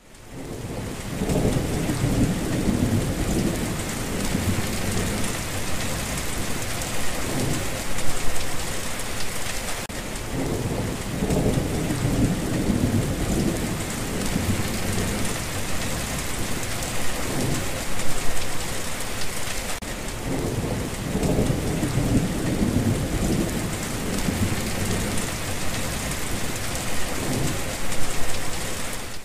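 Steady heavy rain with deep rolling thunder rumbles swelling and fading every few seconds, a storm sound track that repeats about every ten seconds.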